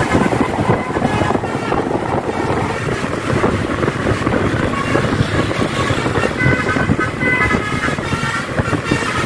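Traffic noise and wind buffeting the microphone on a moving motorcycle riding alongside a bus. A few short high tones sound about two-thirds of the way through.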